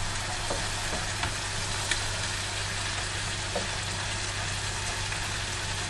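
Bacon, mushrooms and tomato halves frying in a pan, with a steady sizzle, as a slotted spatula stirs them through a sauce, giving a few light scrapes and taps against the pan.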